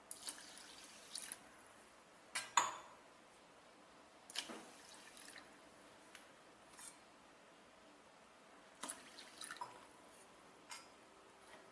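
Water poured onto foxtail millet and split moong dal in a plastic bowl, then faint scattered drips and small splashes as the grains sit soaking. A single sharp tap about two and a half seconds in is the loudest sound.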